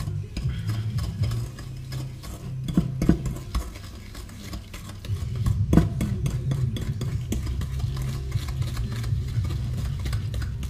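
A large spoon beating softened butter and caster sugar by hand in a glass mixing bowl: a continuous run of scraping and knocking against the glass. It eases off a couple of seconds in and picks up again about halfway through.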